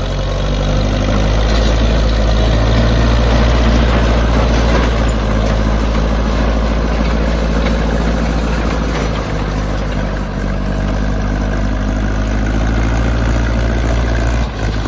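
Case D450 bulldozer's four-cylinder diesel engine running steadily, picking up a little in speed and loudness about a second in.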